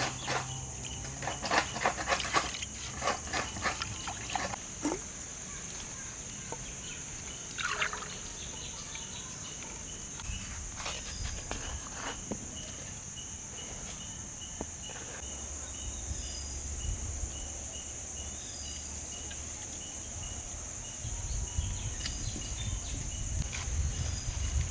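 Outdoor rural ambience dominated by a steady, high insect drone with a regular repeating chirp over it. There are a few knocks and clatters in the first few seconds and a short falling call about eight seconds in.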